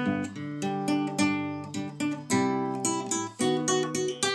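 Nylon-string acoustic guitar strummed in a steady rhythm, each chord ringing on between strokes, with a change of chord about halfway through and again near the end.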